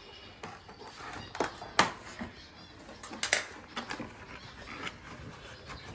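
Handling and rustling of the packaging as a boxed crockery set is unpacked, with irregular small clicks and a few sharp knocks, the loudest about two seconds in.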